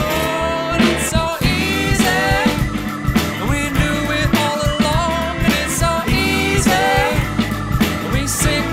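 Background music: a rock song with a sung melody over guitar, bass and drums.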